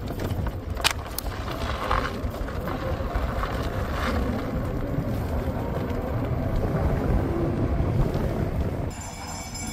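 Wind buffeting the microphone over the low rumble of a moving two-wheeler. Music comes in near the end.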